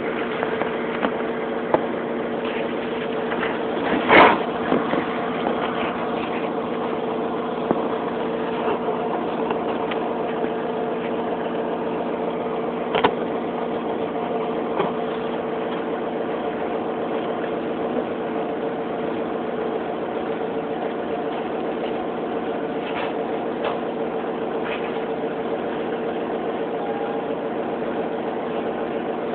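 Steady mechanical hum of a running motor, with a few light clicks and a louder thump about four seconds in.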